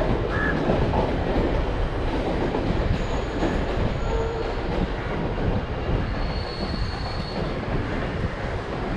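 A train running past close by out of sight, a steady rumble of wheels on the rails, with two brief faint high squeal tones partway through.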